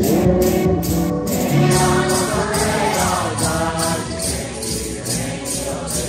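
A congregation singing a Santo Daime hymn together, with many hand-held maracás (rattles) shaken on a steady beat of about two and a half shakes a second.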